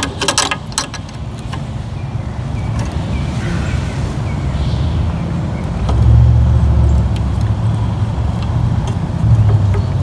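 Metal clicks of a pipe wrench on the threaded screw of a C-clamp, a few in quick succession in the first second, over a steady low rumble that swells about six seconds in.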